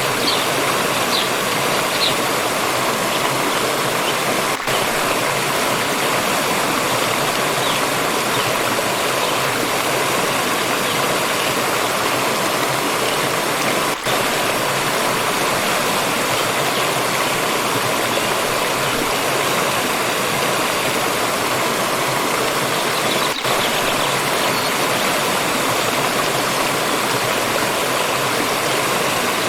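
Steady rushing and splashing of a water stream flowing over rocks. A few short, high bird chirps sound over it in the first couple of seconds.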